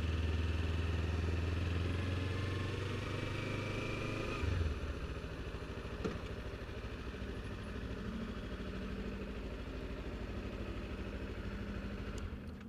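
Kawasaki Ninja 300 parallel-twin engine running at low speed as the bike rolls up to a fuel pump. It eases down to idle about a third of the way in, with one knock a little later, then cuts out near the end.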